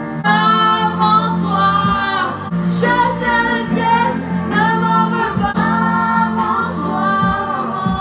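Music with a woman singing long held phrases over a steady bass line.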